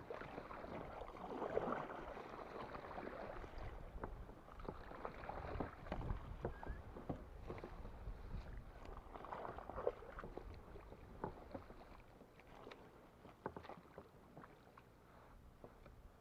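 Kayak being paddled through dense floating water plants: a few swishing paddle strokes with scattered light knocks and clicks, quieter near the end.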